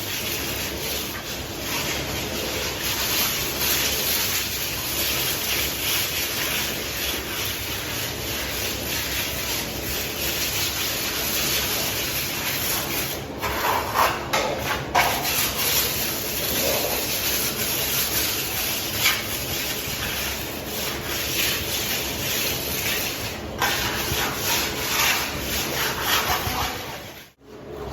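Plastering trowel scraping and smoothing plaster across a wall: a continuous rough rubbing, with a few sharper scrapes about halfway through. It cuts out briefly near the end.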